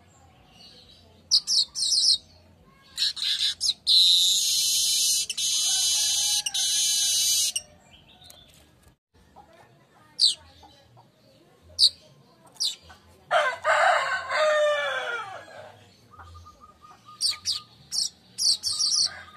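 Weaver bird (manyar) song: short high chirps, then a long buzzy, sizzling trill of about three seconds beginning about four seconds in, and more scattered chirps. About two-thirds of the way through, a rooster crows once, a call of about two seconds that falls in pitch.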